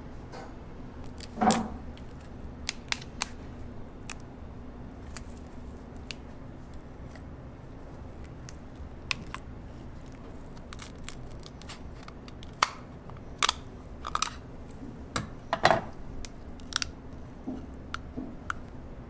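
Cooked lobster shell being cracked and pulled apart by gloved hands: irregular sharp cracks and clicks, loudest about a second and a half in and again near the end, over a steady low hum.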